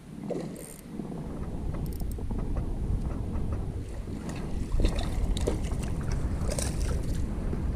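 Kayak under way on a creek: a steady low rumble of water and wind on the mount-camera's microphone, with scattered light knocks against the hull.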